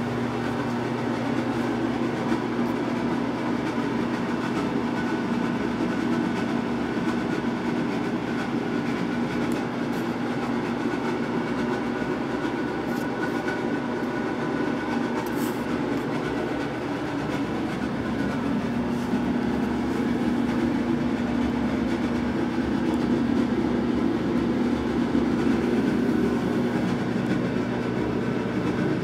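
Steady mechanical hum with a rushing noise and a low, even drone, which swells a little about two-thirds of the way through.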